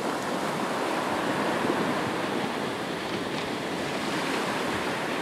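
Ocean surf: waves breaking and washing up a sandy beach, a steady rushing noise.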